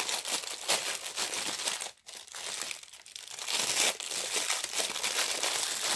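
Small clear plastic bag crinkling and rustling as it is handled and worked open, with a brief pause about two seconds in.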